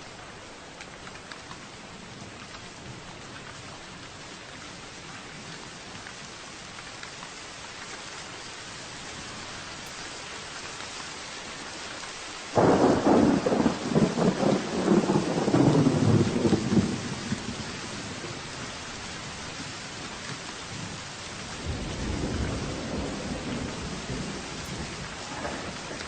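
Steady rain falling, with a sudden loud clap of thunder about halfway through that rumbles on for a few seconds and fades. A second, lower roll of thunder comes near the end.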